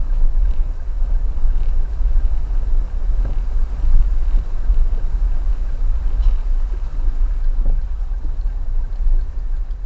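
Toyota Avanza driving through floodwater: a steady, loud low rumble with water rushing against the car and a few light knocks.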